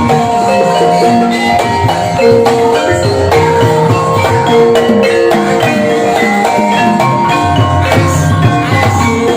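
Gamelan-style ebeg accompaniment playing continuously: tuned mallet percussion striking quick, interlocking melodic notes over drum strokes.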